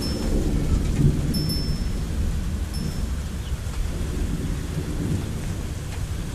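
Long low rumble of thunder, slowly fading, over steady rain. A metal wind chime gives a few brief high tings in the first three seconds.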